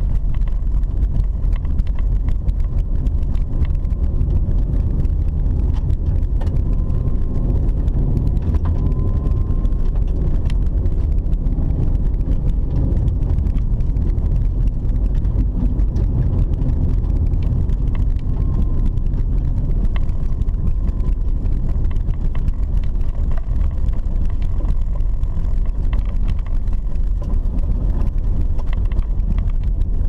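A car driving on an unpaved dirt road, heard from inside the cabin: a steady low rumble of engine and tyres, with frequent small ticks and rattles.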